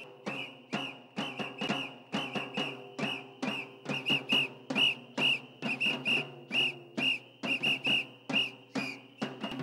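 Protesters' whistles blown in rapid short blasts, roughly two to three a second, in a loose rhythm, each blast sharp and shrill.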